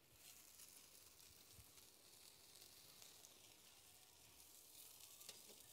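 Mackerel fillets sizzling skin-side down on a hot wire rack over a gas burner, the skin charring and crisping. The sizzle is faint and steady.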